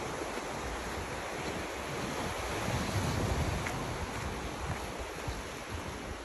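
Waves washing on a rocky shore mixed with wind rumbling on the phone's microphone, a steady rush that swells a little about three seconds in.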